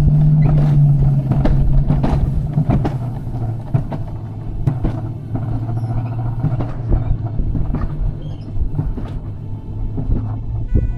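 Alpine coaster cart rolling down its track: a steady low rumble and drone from the wheels on the rail, with frequent short clacks and knocks. The drone drops slightly in pitch about four seconds in.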